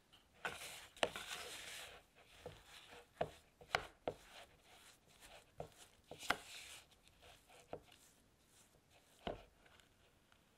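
Spatula scraping creamed butter and sugar off the sides of a mixing bowl, irregular scrapes with sharp knocks as it taps against the bowl.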